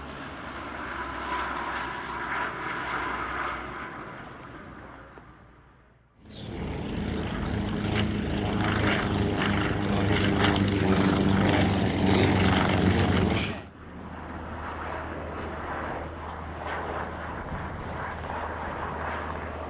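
Three aircraft in turn, each cut off abruptly. First, a Lockheed AP-3C Orion's four turboprops pass with a steady whine that fades away about six seconds in. Next comes a Yak-52's radial piston engine running loud for about seven seconds, and then an MH-60R Seahawk helicopter's rotors and turbines running steadily.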